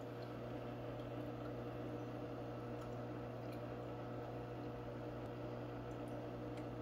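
Aquarium pump humming steadily: a low electrical drone with a few faint ticks.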